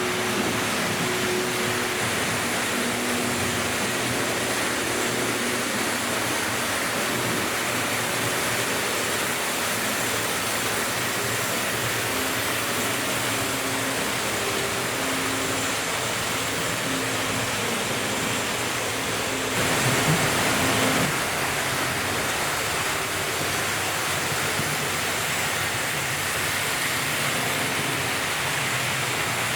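Several Märklin H0 model trains running at once: a steady rushing of metal wheels on the track mixed with the hum of the locomotives' electric motors. About twenty seconds in it swells briefly for a second or so.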